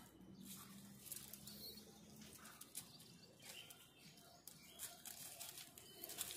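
Near silence with faint rustling and scattered crackles of dry leaves and twigs as gray langurs move over rock and leaf litter.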